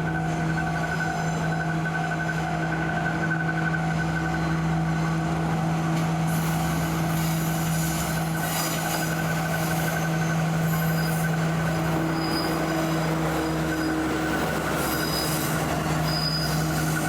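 Freight train running on a cement works' private siding: a steady low hum, with brief high-pitched wheel squeals near the end.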